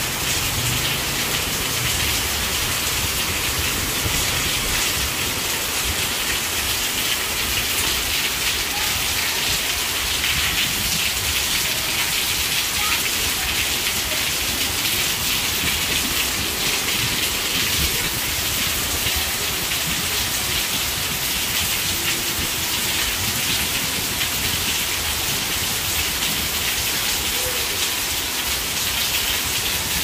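Steady rain falling: an even hiss of many small drops that keeps to one level, with no let-up.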